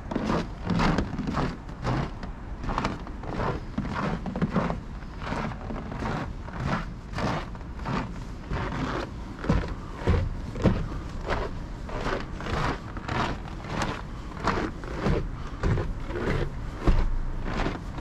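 Footsteps climbing snow-dusted wooden stairs, a steady pace of about two steps a second.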